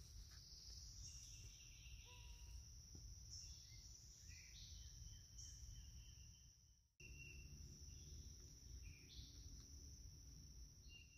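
Faint woodland ambience: a steady high-pitched insect drone, with scattered short bird chirps over it. The sound cuts out briefly about seven seconds in.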